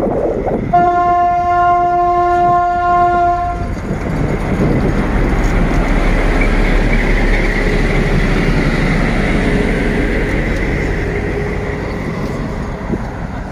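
PKP class SU45 diesel locomotive sounding one steady horn note for about three seconds. Then its diesel engine runs and the wheels roll over the rails as it passes close by, easing off slightly near the end.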